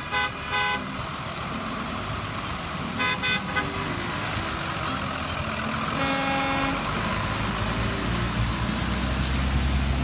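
School buses driving off on a wet road: engines running and tyres hissing on the wet surface, with short horn toots at the start, about three seconds in and about six seconds in. The engine rumble grows louder near the end as a bus comes close.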